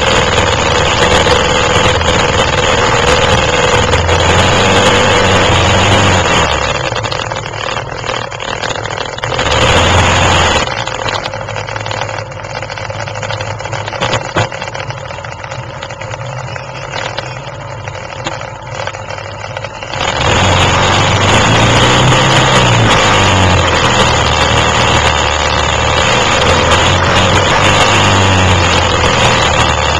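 Quad bike (ATV) engines running on an off-road ride, revving up and easing off in steps. The engine is loud at first, drops back for most of the middle apart from a short loud burst, then runs loud again for the last third.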